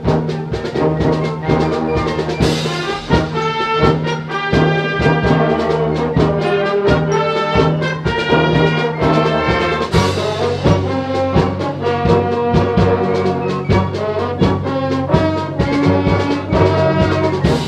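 Symphonic wind band playing live: full brass and woodwind chords over a steady percussion beat, with two loud crashes, about two and a half seconds in and again at ten seconds.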